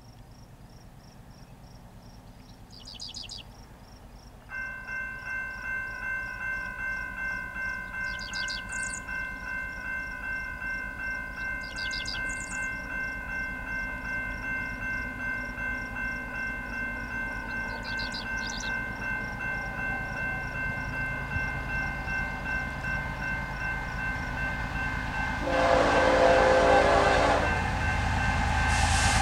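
The approaching BNSF ES44AC's Nathan K5HL five-chime air horn starts about four seconds in and is held in one long, unbroken chord that grows louder. Near the end the rumble of the locomotives and train rises sharply as the train draws close.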